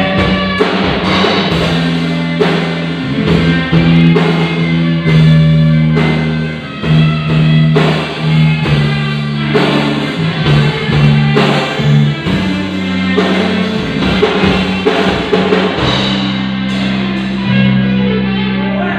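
Band music: a drum kit beating steadily with guitar over a line of held low bass notes.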